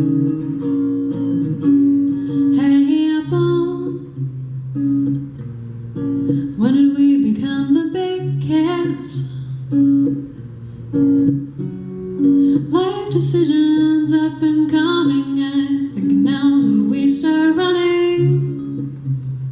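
Acoustic guitar strummed steadily in a song's instrumental passage, with a woman's singing voice coming in over it in a few phrases.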